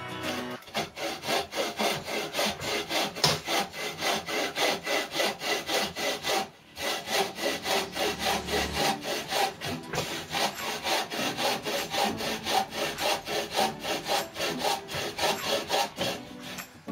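Bow saw cutting through a thick piece of timber in quick, even back-and-forth strokes, with a brief pause about six and a half seconds in before the sawing resumes.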